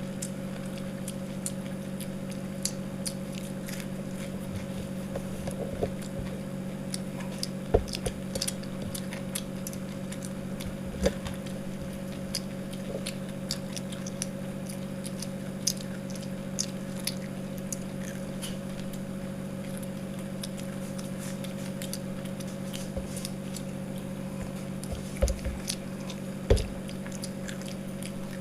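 People chewing and biting into crispy breadcrumb-coated chicken pakoda, with scattered crunches and clicks, over a steady low hum.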